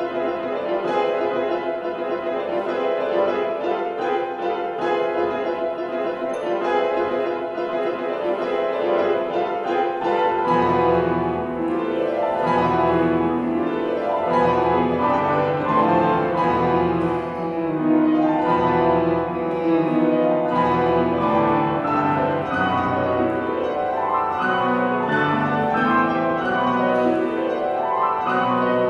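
Grand piano played solo. About a third of the way in, deep bass notes come in beneath the higher line and the playing grows fuller and a little louder.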